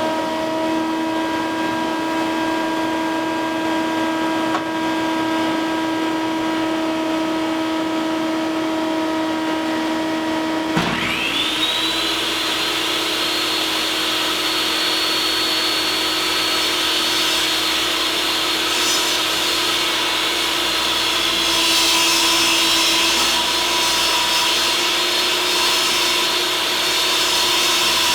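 Shop vac running with a steady whine; about eleven seconds in, the table saw's motor spins up with a quickly rising whine and runs alongside it. In the last third the saw is plausibly ripping a MiraTEC trim board, with the vac pulling the dust.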